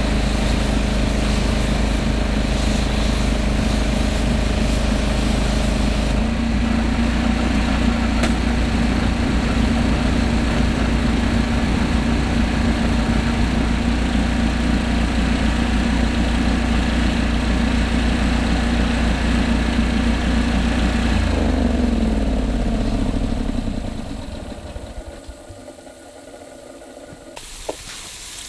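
Landa hot water pressure washer's engine and pump running steadily, the engine note shifting about six seconds in. Near the end the engine is shut off and winds down to a stop, followed by a click and a high hiss.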